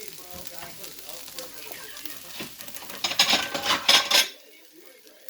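Food frying and sizzling in a Calphalon pan while it is stirred. About three seconds in, the utensil scrapes and clatters against the pan loudly for just over a second, then the sound drops off suddenly.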